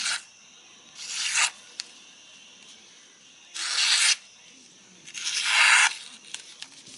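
Alabama Damascus steel knife blade slicing through a sheet of paper, three short scratchy cutting strokes each about half a second long, a test of how sharp the edge is.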